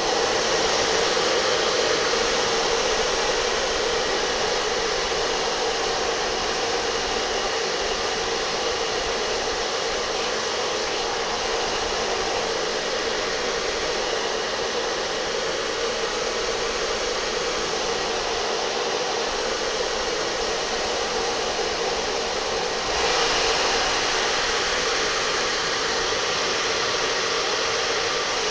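A steady rush of strong blown air, with a long grey T-shirt flapping in the airflow. The rush gets a little louder and brighter about 23 seconds in.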